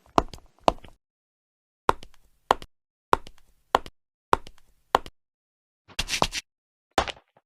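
Dragon Ball Z anime footstep sound effects: pairs of sharp knocking steps about half a second apart, with short silences between the pairs. Near the end come two noisier, scuffing steps with more hiss.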